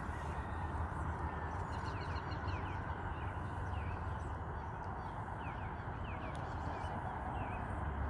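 Birds chirping: a series of short, falling chirps repeated every second or so, over a steady outdoor hiss and low rumble.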